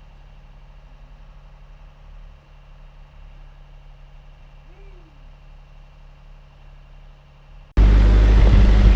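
A faint steady low hum, then, near the end, a tractor engine running close cuts in suddenly and loudly.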